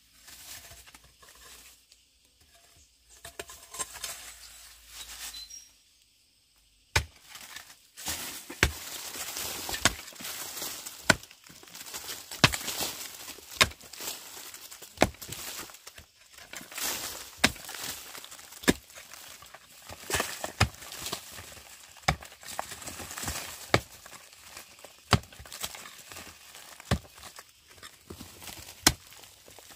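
A short-handled mattock chopping into a bank of dry, crumbly earth. The strikes start a few seconds in and come about once a second, with loose soil breaking away and spilling between them.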